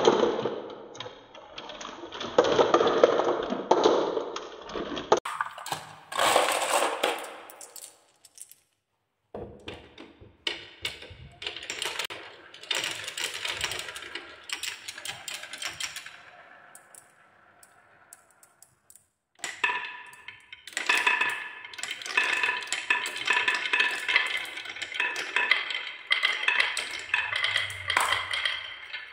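Marbles rolling down wooden marble-run tracks, rattling along the wavy grooves and clacking against the wood and each other. The rolling comes in several runs separated by short gaps, with a steady ringing clatter of many balls near the end.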